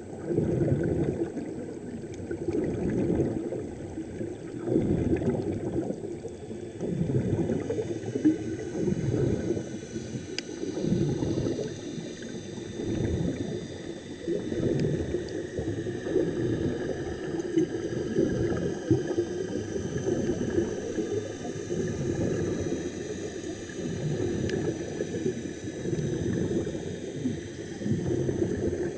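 Muffled underwater bubbling and gurgling of air escaping from a diving helmet, rising and falling in surges every second or two.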